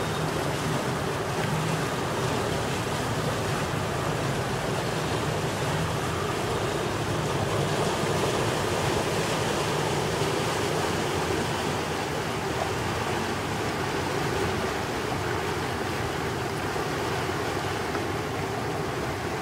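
Steady rush of river water and wind, with the low drone of boat engines underneath.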